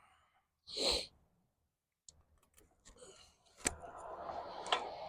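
Hands working on the quad: a short hissing puff about a second in, a few light clicks, then a sharp click about three and a half seconds in followed by rustling and more small clicks.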